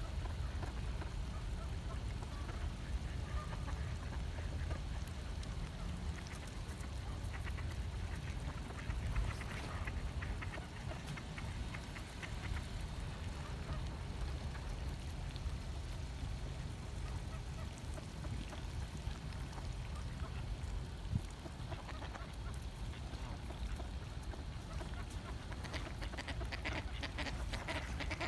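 A duck calling again and again with a strange, changed-sounding voice, over a steady low rumble.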